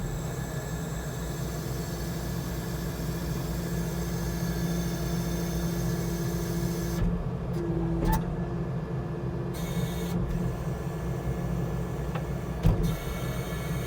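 Skid steer engine running steadily, with a steady whine above the engine hum that briefly shifts pitch about halfway through.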